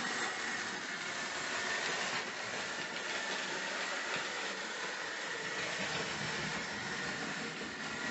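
Hornby OO-gauge LMS Black Five model locomotive running slowly on its track: a steady electric whirring with a steady high whine. It is a 40-year-old model on its first run, sluggish while it beds in.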